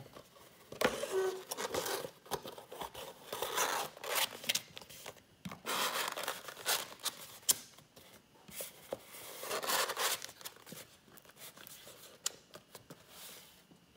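Scratchy rubbing and scraping of paperboard as a packaging tray's walls and end flaps are folded in and pressed down by hand, in several short spells with a few sharp clicks.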